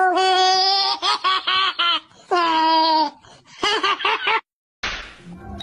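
Black pug puppy on its back being tickled, giving loud high cries: long drawn-out squeals broken up by quick stuttering yelps. The cries stop about four and a half seconds in, followed by a short hiss.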